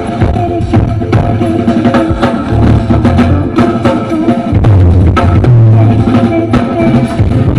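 Instrumental music with a drum kit beat and a heavy, sustained bass line, played loud.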